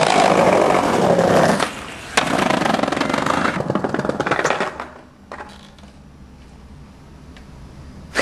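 Skateboard wheels rattling over brick paving, with a sharp clack about two seconds in. The rolling dies away a little before the five-second mark, leaving quiet background noise.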